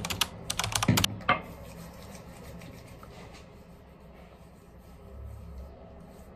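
A quick cluster of sharp clicks and knocks in about the first second and a half, then a low steady hum of room tone.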